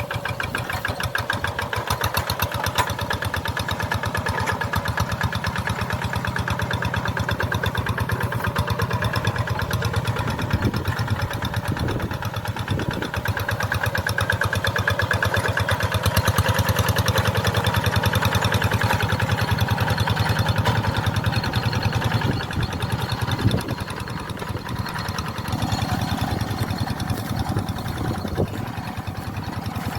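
Tractor engine running steadily with an even, rapid firing pulse, dipping slightly in loudness now and then.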